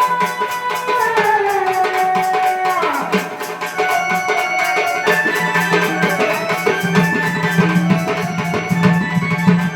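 Indian devotional folk music: a fast hand-drum rhythm with jingling percussion under a melody line that slides down in pitch in the first few seconds.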